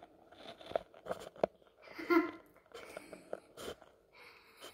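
Quiet room with a few faint, scattered clicks and taps, and a brief voice sound about two seconds in.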